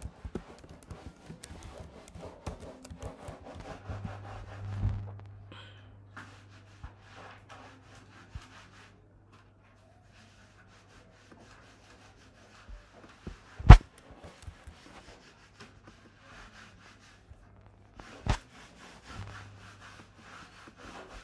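Typing on a computer keyboard: runs of quick key clicks with short pauses, and two sharper, louder clicks, one about two-thirds of the way through and one near the end. A faint low hum comes and goes from about four seconds in.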